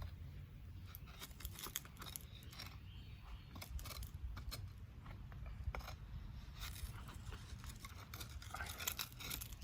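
Irregular scraping, crunching and small clicks as the freshly cast copper piece is dug and pried out of its mold.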